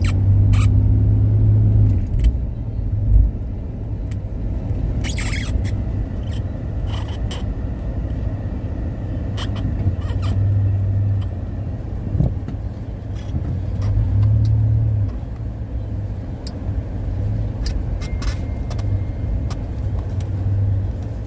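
Car running, heard from inside the cabin: a steady low hum that swells and eases every few seconds, with a few scattered clicks and knocks.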